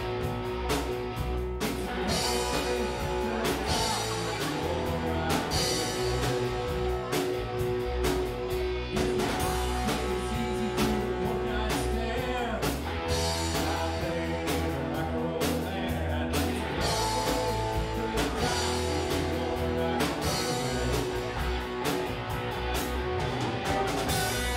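Rock band playing live: electric guitars over bass and drums, with a steady beat.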